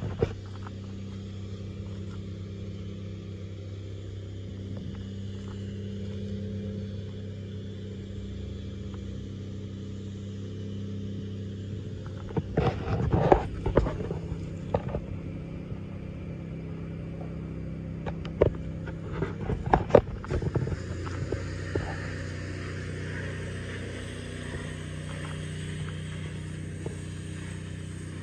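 1990 GMC Topkick pumper fire truck's engine idling steadily. Clusters of sharp knocks and scrapes come about thirteen seconds in and again around nineteen to twenty seconds in, and these are the loudest sounds.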